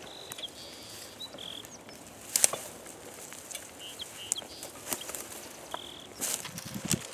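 Footsteps crunching through dry grass and crop stubble, with a sharp crack about two and a half seconds in and more crackling near the end. A bird gives several short whistles at a steady pitch in the background.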